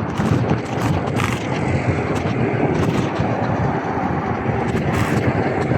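Wind rushing over the helmet or bike camera's microphone, mixed with tyre and road noise on a fast ride on wet tarmac beside passing traffic. A steady, loud rush, broken by scattered sharp clicks.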